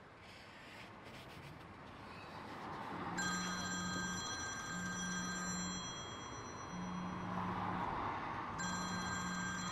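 Smartphone in a dashboard holder ringing with an incoming call, starting about three seconds in: a high ringtone over repeated buzzes of its vibration, each buzz a little over a second long, four in all.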